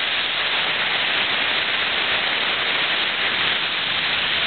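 Torrential rain and strong wind of a severe thunderstorm, heard as a steady, loud hiss.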